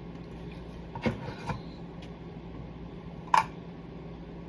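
Kitchen items being handled while baking: a few separate knocks and clicks, the sharpest and loudest about three seconds in, over a faint steady hum.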